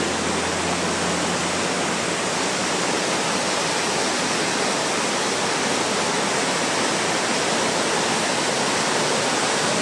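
Steady rush of a flooded creek in full spate, fast floodwater running loud.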